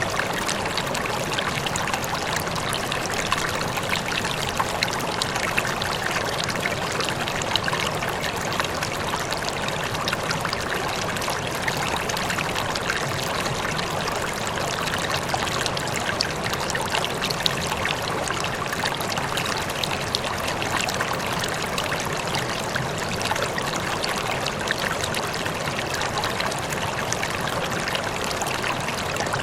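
Running water, a stream flowing and trickling in a steady, even rush with fine splashy detail.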